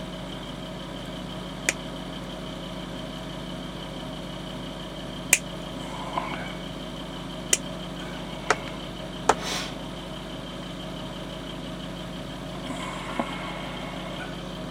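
Steady low workshop hum with a handful of sharp clicks and taps from small plastic model parts being handled on a workbench, most of them in the first ten seconds.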